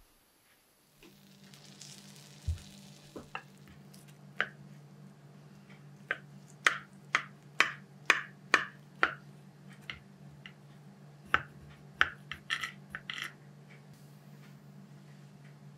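A knife cutting through a baked pizza in a glass pie dish, making sharp clicks and crackles at about two a second as the blade goes through the crust and knocks against the glass, in two runs. A steady low hum sits underneath from about a second in.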